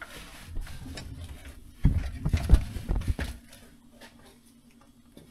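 A handful of dull, heavy knocks and clunks about two to three seconds in, from engine parts being handled while pistons and connecting rods go into the engine block, followed by a faint steady hum.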